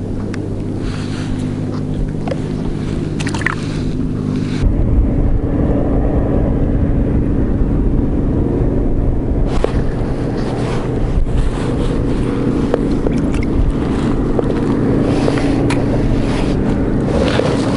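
Wind buffeting the camera microphone: a loud, steady low rumble that changes character about five seconds in, with a few faint clicks.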